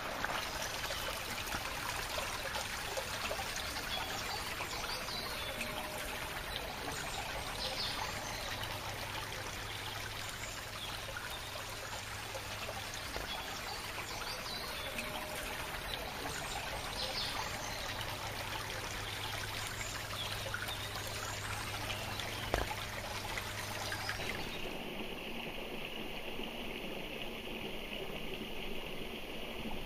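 Shallow river water running and trickling over stones in a steady wash, with one sharp knock a little past two-thirds through. Near the end the sound changes character as the water is heard closer, running past a rock.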